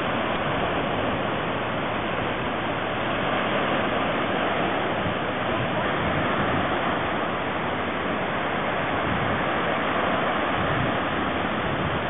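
Ocean surf: small waves breaking and washing in, a steady rushing noise.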